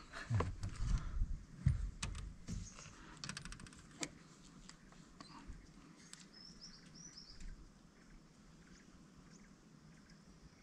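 Faint outdoor ambience with a few low knocks in the first two seconds and a quick run of clicks about three seconds in. A short series of high bird chirps follows around the middle.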